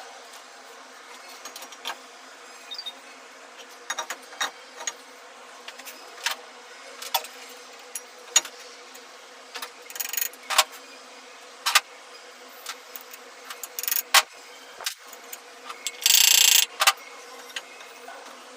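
Irregular sharp clicks and knocks of tools and metal parts being handled during repair work on an elevator machine. A short, louder hissing burst comes about sixteen seconds in.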